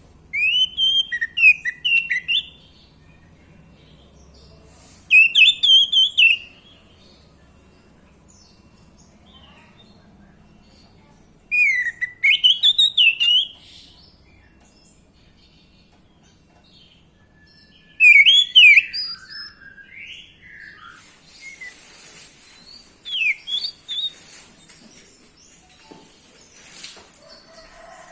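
Orange-headed thrush (anis merah) singing in four loud phrases of quick, sliding notes rising and falling, a few seconds apart, followed by softer scattered notes.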